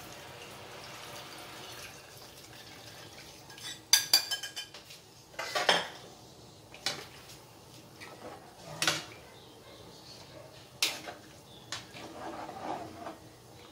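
Thick soup mix pouring into a pot with a soft steady hiss, then a metal utensil clanking against an aluminium soup pot: a ringing cluster of knocks about four seconds in, then single knocks every second or two as the soup is stirred.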